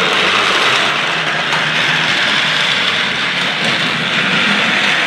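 Motorised Paw Patrol toy train running along its plastic track: a steady whirring hiss from its small motor and wheels.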